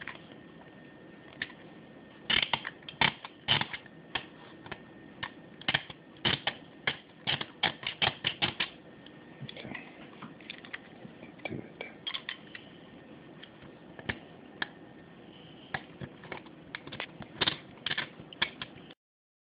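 Hobby knife blade scraping shellac off a solar laminate's metal bus bar: quick, irregular scratchy clicks coming in clusters, cleaning the bar bare for a good solder joint. The sound cuts off suddenly near the end.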